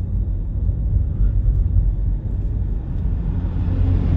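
Low, steady rumble of a car being driven, heard from inside the cabin: engine and road noise, a little louder near the end.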